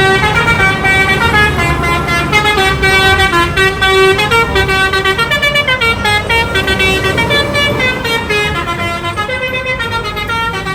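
Bus telolet horn playing a long, fast melody of stepping musical horn notes, several sounding together at times, over a low engine rumble. It stops near the end.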